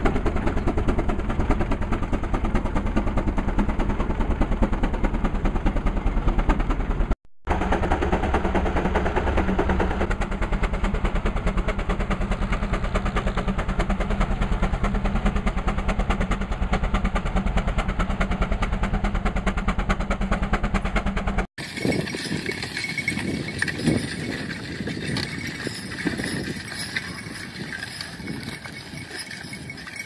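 Steam traction engine working under load as it pulls a plow: a steady, rapid beat of chuffing and clatter, broken once about seven seconds in. About two-thirds of the way through it cuts to a quieter, irregular field sound.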